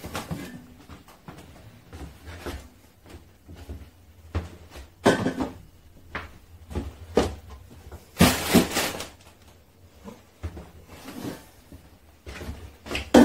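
Scattered kitchen handling sounds: irregular knocks, clicks and clunks of things being moved about, with two louder clattering bursts about five and eight seconds in.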